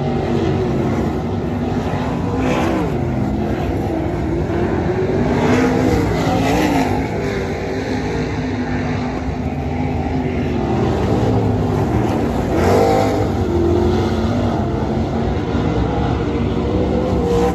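Several 360 winged sprint car engines running laps on a dirt oval. Their pitch rises and falls again and again as the cars get on and off the throttle and come by.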